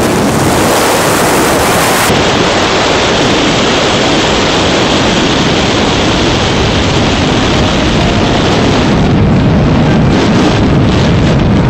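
Loud, steady rush of wind buffeting the microphone.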